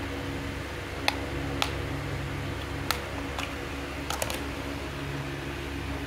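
Sharp plastic clicks from a Costar T310 doorbell receiver's plastic casing being worked open by hand after its screw is out, a few single clicks and then a quick cluster of three near the end, over a steady low hum.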